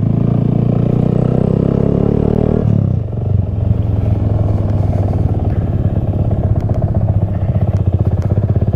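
Honda Grom's small single-cylinder four-stroke engine under way, its pitch rising for nearly three seconds, then dropping suddenly and running steady.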